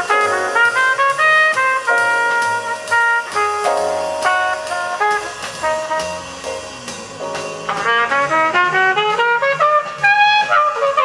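Jazz played back through Dynaco A-10 bookshelf loudspeakers driven by a Technics SE-A100 stereo power amplifier, heard in the room. Quick runs of melody play throughout, a softer passage comes in the middle, and it grows louder again near the end.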